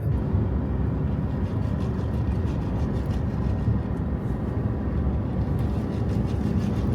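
Steady road noise and engine hum inside a vehicle's cab while driving at speed.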